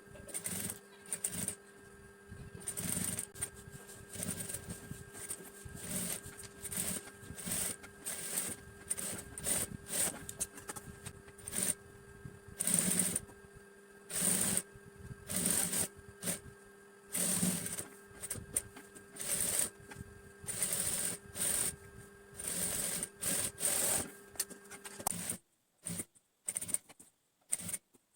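Sewing machine stitching cloth in many short runs, starting and stopping every second or so over a steady hum. Near the end the hum and stitching stop, leaving a few brief handling sounds.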